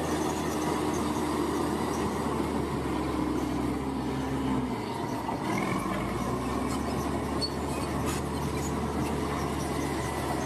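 Heavy machinery engine running steadily with a low hum; its pitch shifts briefly about halfway through.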